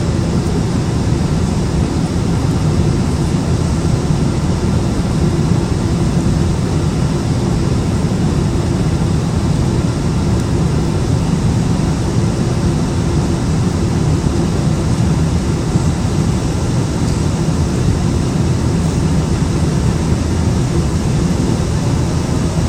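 Steady jet noise of a British Airways Boeing 777: a constant low rumble with a hiss above it that holds the same level throughout.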